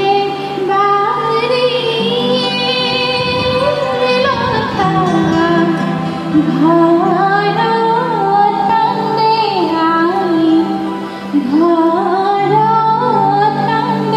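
A woman singing a melody with held, wavering notes over steady instrumental backing.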